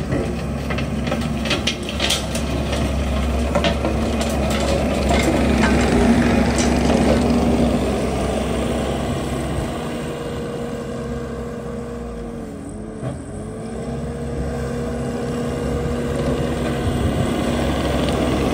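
Bobcat T870 compact track loader's diesel engine running under load while its Coneteks 2.13M grinding attachment works the soil: a steady drone with scattered clicks and rattles in the first few seconds. About thirteen seconds in, a higher whine dips in pitch and comes back up.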